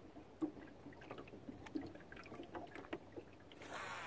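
Water lapping against a small fishing boat's hull, with faint scattered ticks and knocks, and a short gust of wind hiss near the end.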